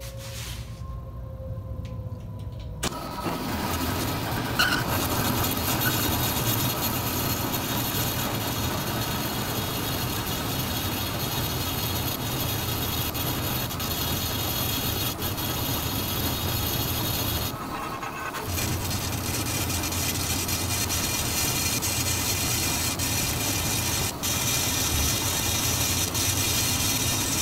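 DoAll vertical bandsaw with a freshly fitted blade running and cutting slowly through thick steel plate: a steady hiss over a low motor hum, with the cutting noise coming in about three seconds in. The feed is kept very light to break in the new blade.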